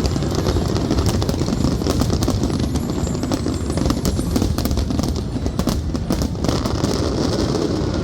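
Fireworks going off: a continuous low rumble of bursts with many sharp crackles over it.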